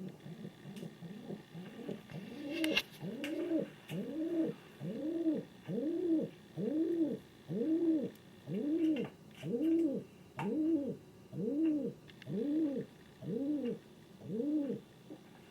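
King pigeon calling in a long rhythmic series of cooing notes, each rising and falling in pitch, about one a second. The notes start faint, grow louder after a couple of seconds, and stop shortly before the end.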